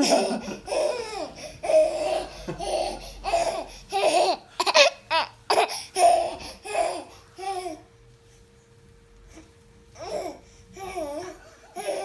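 A baby laughing in repeated high-pitched peals while being bounced. The laughter stops for about two seconds near the two-thirds mark, then a few more laughs follow.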